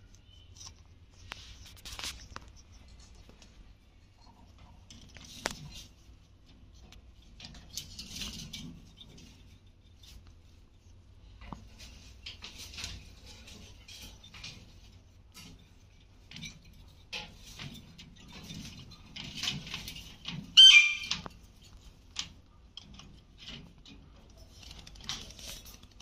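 Alexandrine parakeets pecking and crunching at green capsicum, with scattered beak clicks and rustles in the cage. A short, loud parrot squawk comes about two-thirds of the way through and is the loudest sound.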